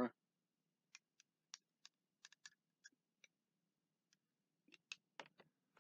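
Near silence with faint, scattered light clicks as thick barbecue sauce is poured from a glass bottle onto a metal spoon: a run of ticks from about a second in, a short pause, then a few more near the end.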